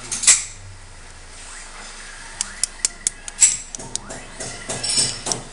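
Sharp, light taps of a small plastic-faced hammer on the metal parts of a Grand Power X-Calibur pistol, with a couple of metal clicks just after the start and then a quick, irregular run of taps through the second half.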